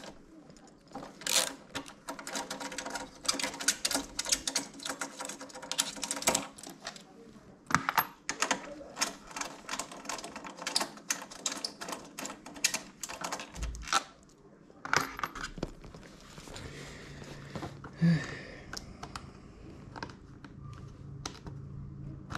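Quick small plastic clicks and clatter as plastic trim clips are prised out of the motorcycle's bodywork panels and tools are handled. After about fifteen seconds the clicks thin out and a low steady hum is left.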